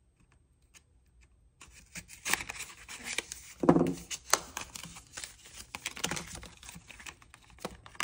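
A small paperboard box being pried open, first with a metal cuticle pusher and then by hand. Starting about a second and a half in, there are scraping, clicking and crinkling sounds from the cardboard flaps, with one louder thump about four seconds in.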